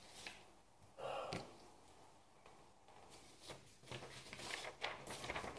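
Faint handling noises from a person settling in: a breath-like exhale about a second in, then scattered light clicks and rustles.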